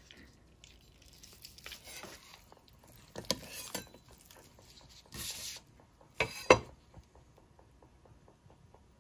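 A kitchen knife and a ceramic plate knocking and scraping while sliced boiled beef is moved from a wooden cutting board onto the plate: a few light knocks, a brief scrape, then one sharper knock about six and a half seconds in.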